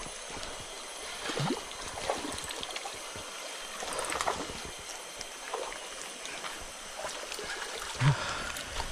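River water flowing steadily over rocks, with a few short faint sounds over the rush.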